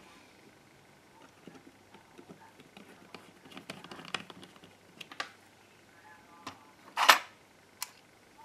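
Plastic housing of a GHD 5.0 hair straightener being handled on a workbench: scattered light clicks and rustles, then a sharp clack about seven seconds in as the arm is set down, with a smaller click just after.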